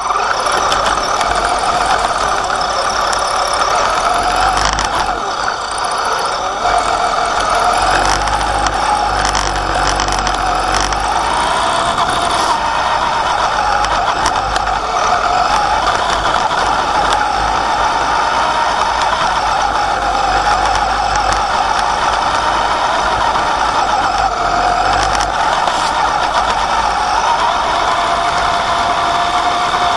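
Onboard sound of an Axial Wraith RC truck driving over grass and dirt: the electric motor and two-speed gearbox whine, the pitch rising and falling with the throttle, over a low rumble and rattling from the chassis bouncing on the rough ground.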